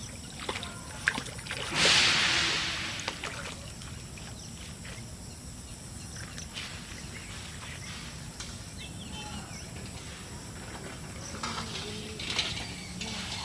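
A single loud splash in the canal water about two seconds in, fading away over about a second, followed by quiet outdoor background with a few small knocks.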